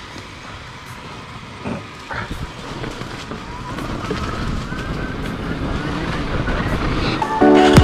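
Yamaha WR single-cylinder four-stroke enduro dirt bike engine running under way, with revs rising and the sound growing louder. Music starts near the end.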